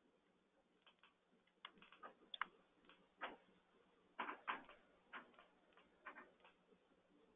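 Near silence broken by faint, irregular clicks and taps, a dozen or so scattered unevenly, with a small cluster about four seconds in.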